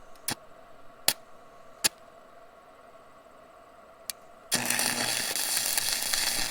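A few sharp clicks, then an electric welding arc crackling and hissing for about two and a half seconds with a low hum under it: tacking a washer onto the stub of a twisted-off bolt.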